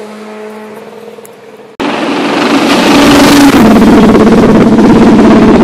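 Rally car engine fading as the car drives away, breaking off abruptly about two seconds in. Then another rally car approaches at high revs, its engine note growing loud within a couple of seconds and staying loud.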